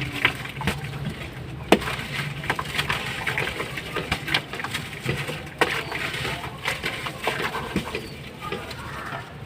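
Dry slabs of ash or sand-cement crumbling in water, fizzing and crackling with many small clicks. A few sharper cracks stand out, the loudest about two seconds in and another a little over halfway.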